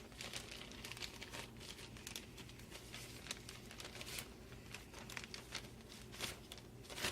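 Bubble wrap and packaging being unwrapped by hand, faint crinkling with scattered small crackles and rustles.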